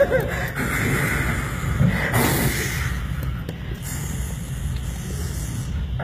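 A man making vocal sound effects into a microphone, mimicking cooking sounds with breathy hisses and spray-like blasts: one sharp hiss about two seconds in and a long high hiss near the end.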